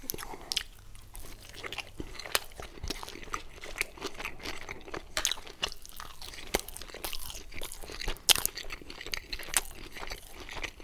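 A person biting into and chewing a slice of Domino's Hawaii pizza close to the microphone: many short, irregular crunches from the crust.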